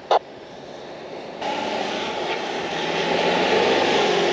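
A four-wheel-drive ute's engine working hard as it climbs through soft sand, its tyres churning and spraying sand, starting abruptly about a second and a half in and growing louder as it comes close. A brief sharp noise sounds at the very start.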